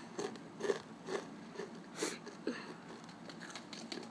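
Takis rolled tortilla chips being chewed with the mouth closed close to the microphone: irregular crunches at about two a second, one louder crunch about two seconds in.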